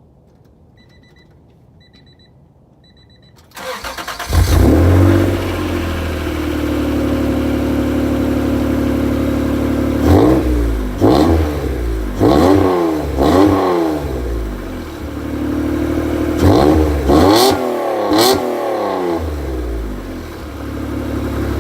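Three short electronic beeps, then the 1992 Acura NSX's 3.0-litre V6 is cranked and catches on a cold start, breathing through a new Pride V2 aftermarket exhaust. It settles into a steady idle, then is blipped in two bursts of quick revs, four and then three, each rising and falling, before dropping back to idle.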